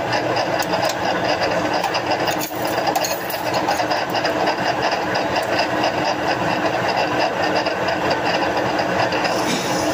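Metal lathe running steadily as it turns a large disc-shaped workpiece, a dense mechanical hum with a fast, regular ticking of about four a second.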